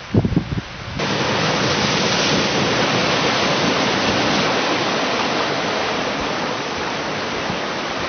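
Sea surf washing in a steady rushing hiss that comes up sharply about a second in, with a few short low buffets of wind on the microphone at the start.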